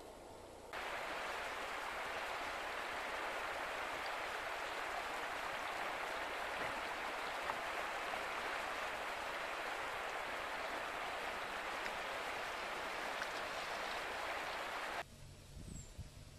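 River water rushing steadily over a shallow, rocky riffle, a constant even hiss. It starts abruptly just under a second in and cuts off suddenly about a second before the end.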